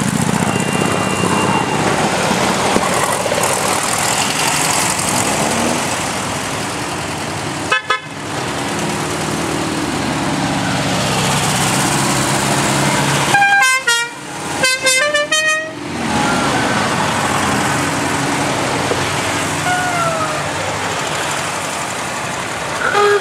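Motorcycle trikes pulling away one after another, engines running steadily, with horn toots: a short honk about a third of the way in, then a quick run of horn notes at several different pitches a little past halfway, and more honks at the very end.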